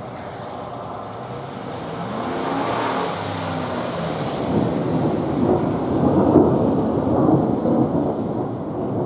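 A car passes, its engine falling in pitch and its tyre hiss swelling and fading about three seconds in. Then thunder rolls, loudest a little past the middle and easing off near the end.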